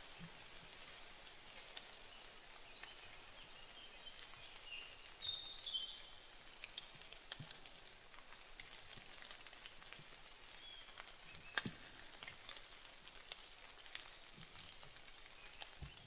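Faint steady rain with scattered drops ticking on surfaces. About five seconds in there is a brief high call.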